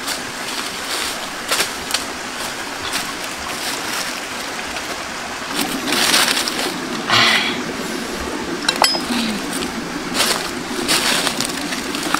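Dry leaves rustling and crunching under bare feet, with scattered small clicks of stones and sticks. The two loudest rustles come about six and seven seconds in, over a steady background hiss.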